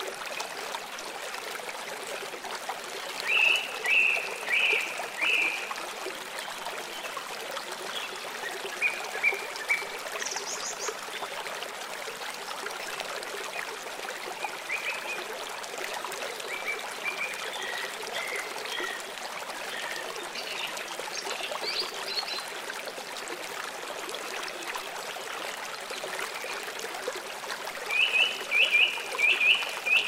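Nature ambience of a running stream, a steady rush of water. Over it, short chirping animal calls come in quick runs of four or five notes, about three seconds in and again near the end, with scattered fainter chirps in between.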